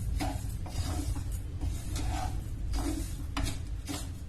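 Spoon stirring and scraping a wet mix of grated ginger and sugar in a pan, in repeated strokes about one or two a second.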